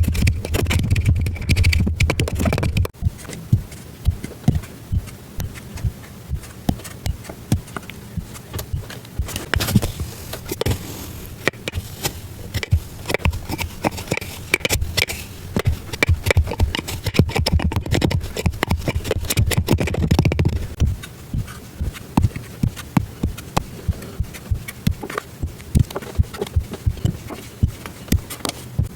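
Kinetic sand being squished and cut, giving many short, crisp crackles and crunches in an irregular run, with a low hum underneath at times.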